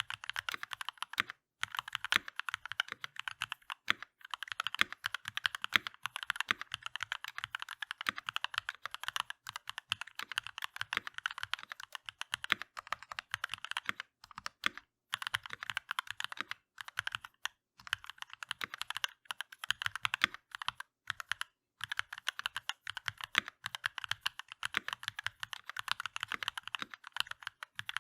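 Fast continuous typing on a Keychron V1 mechanical keyboard with DCX keycaps: rapid key clacks with a few brief pauses.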